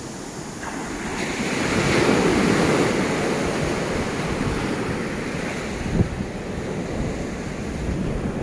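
Ocean surf breaking and washing up the sand, swelling about two seconds in and then easing, with wind on the microphone. A brief thump about six seconds in.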